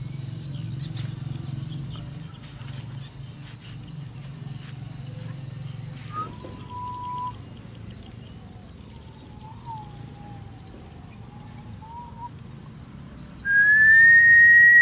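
Clear whistling over a low steady outdoor hum: a few soft notes in the middle, some held and one wavering, then one long loud whistle near the end that rises slightly and stops abruptly.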